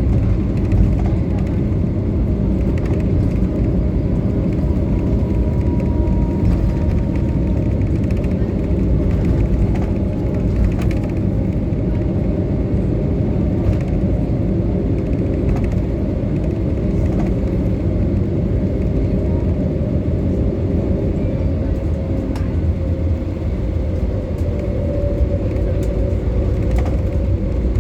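Cabin noise inside an Airbus A320neo: a steady low rumble of engines and airflow, with a faint high engine whine sliding slowly down in pitch over the first several seconds and another faint tone rising near the end.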